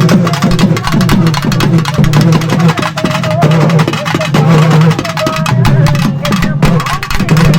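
Music driven by fast, dense drumming, with a melody line that holds a note briefly about three seconds in and again past five seconds.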